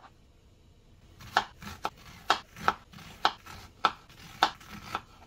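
Kitchen knife chopping a white onion on a plastic cutting board. There are about nine sharp knocks of the blade on the board, roughly two a second, starting about a second in.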